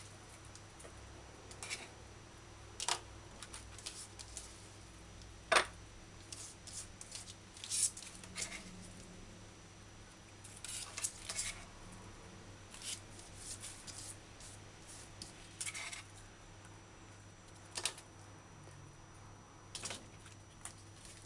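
Kitchen knife cutting vegetables on a plastic cutting board: about a dozen scattered, irregular taps and clicks with quiet stretches between.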